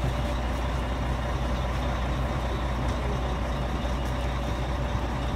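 Charter bus's diesel engine idling, a steady low drone.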